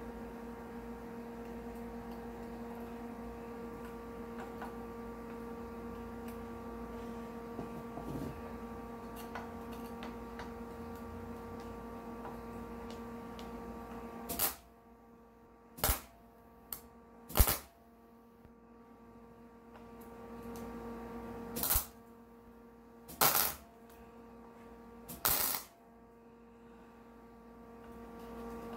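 A flux-core wire welder striking short tack welds on a steel washer: about six brief bursts of crackling arc, a second or two apart, beginning about halfway through. Before them there is a steady hum.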